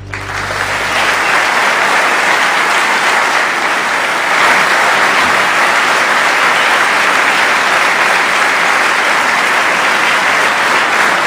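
Large audience applauding, swelling over the first second and then holding steady.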